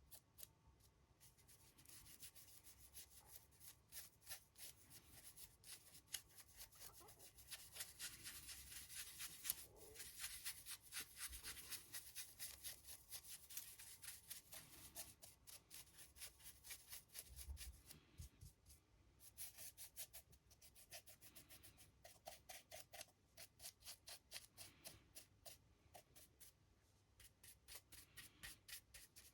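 Paintbrush bristles scrubbing on a model, a fast run of short, faint scratchy strokes that eases off for a moment and picks up again.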